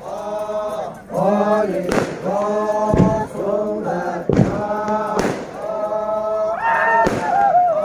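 Group of Naga dancers chanting in unison as they march, short repeated phrases of about a second each with a falling call near the end. Five sharp cracks sound between the phrases.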